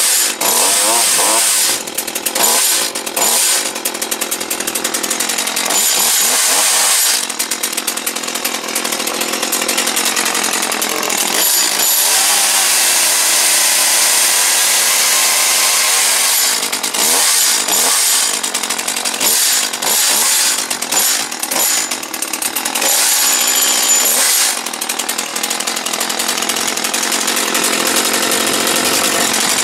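New Echo CS-271T two-stroke top-handle chainsaw running on its first start, revved up and let back down again and again.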